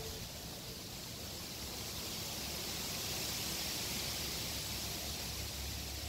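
Steady outdoor background hiss with a low rumble underneath, and no clear sound from the puppies.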